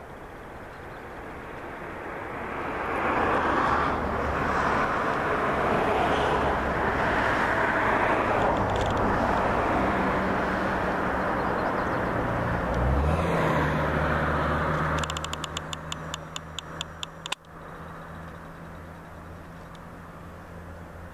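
A motor vehicle passing close by: its noise swells, holds for several seconds and fades. About two-thirds through, a low engine hum comes in with a short rise in pitch, followed by a run of clicks. The sound then drops suddenly to a quieter steady hum.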